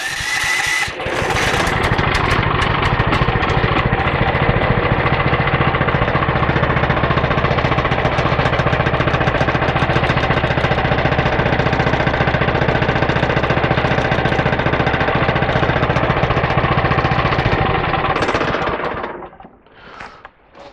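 A 14 hp 420cc single-cylinder gasoline engine on a homemade bandsaw sawmill starts up about a second in and runs steadily with a fast, even firing beat. It dies away near the end.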